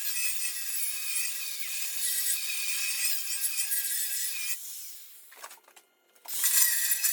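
A power tool working on steel, a steady hiss with a faint wavering whine. It fades out about four and a half seconds in, goes almost silent, and starts again just after six seconds.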